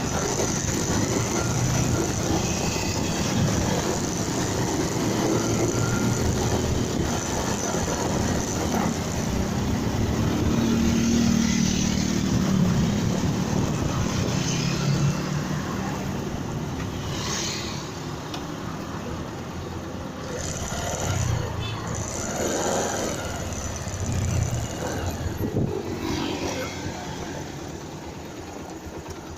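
Motorcycle running along the road, engine noise mixed with wind and road noise, growing quieter about halfway through.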